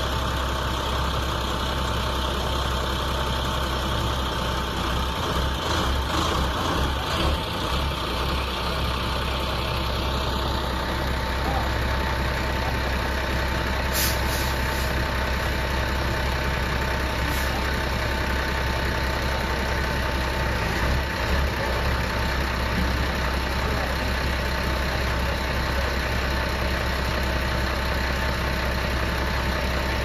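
Large diesel engine of a wheel loader with a tyre-handler arm, idling steadily, with a thin steady whine above the low hum. A short sharp click comes about halfway through.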